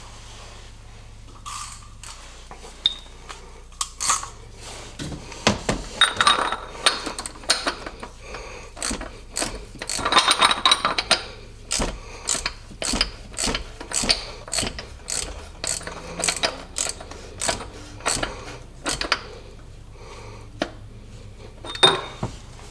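Metal hand tools working on the car: a run of sharp metallic clicks and clanks. They come in dense clusters at first, then settle to about one a second, with a last loud clank near the end.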